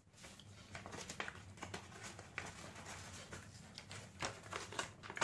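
Sheets of paper being handled and shuffled: a run of short, irregular rustles and crackles.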